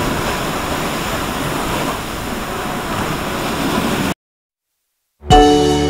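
Ocean surf washing up over a sandy beach, a steady rushing noise that cuts off suddenly about four seconds in. After a second of silence, music starts near the end.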